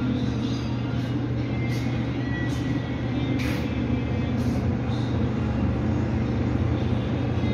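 A steady low machine hum, unchanging throughout, with a few faint light ticks over it.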